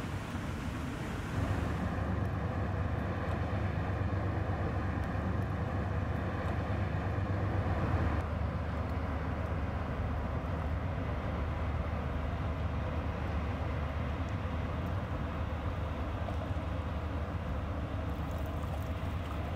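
Diesel engine of an inland motor cargo ship droning steadily as the ship passes, a deep low hum with fainter steady tones above it. It grows louder about one and a half seconds in.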